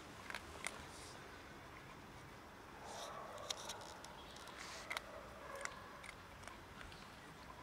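Cat crunching dry kibble: a scatter of irregular sharp crunches and clicks, a little busier a few seconds in.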